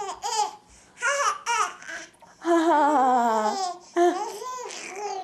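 Baby babbling and laughing: a few short high calls, then one long call that falls in pitch about halfway through, then more laughing near the end.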